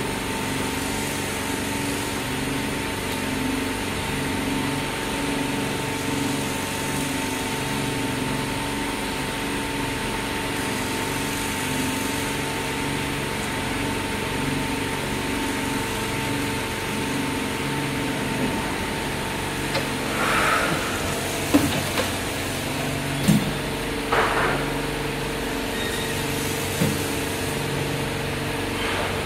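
Workshop machinery running with a steady hum, a continuous tone and a low throbbing pulse about once a second. A few short hisses and sharp knocks come about two-thirds of the way through.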